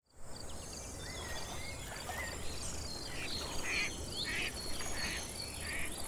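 Natural ambience of several birds chirping and calling over an evenly repeated high insect-like note, with a run of harsh calls in the second half and a low steady rumble underneath.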